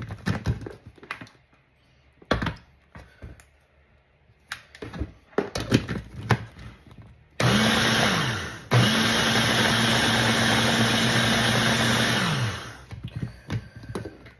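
A few clicks and knocks, then the motor of a Hamilton Beach hand blender runs in its chopper attachment, chopping vegetables. There is a short burst about seven seconds in that winds down, then a longer steady run of about three and a half seconds that spins down.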